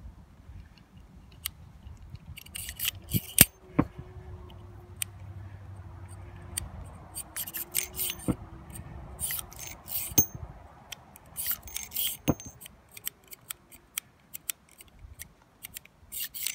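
Revolver being handled: scattered light metallic clicks and clinks, some in quick little clusters.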